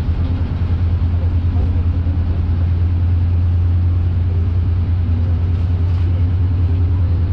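Kominato Railway diesel railcar running along the line, its engine giving a steady low drone with a fast pulsing rumble, heard from inside the car.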